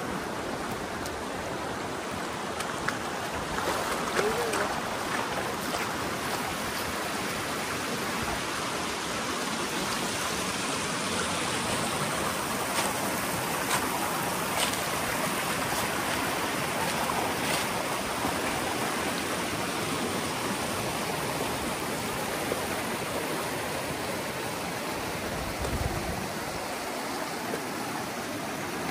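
River water rushing steadily, with a few short sharp clicks and a dull low thump near the end.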